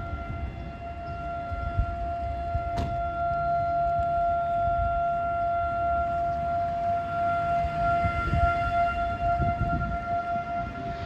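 Outdoor warning siren sounding a steady tone during a scheduled test. The pitch holds level throughout, over a low rumble, with a brief click about three seconds in.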